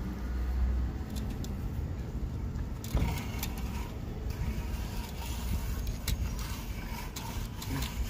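Steady low rumble of a nearby vehicle engine running, with scattered light metallic clicks and taps of hand tools on a tamper switch's steel mounting bracket from about three seconds in.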